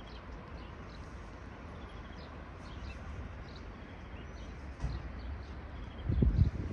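Small birds chirping over a steady low outdoor rumble. A louder, low-pitched burst of noise comes about six seconds in.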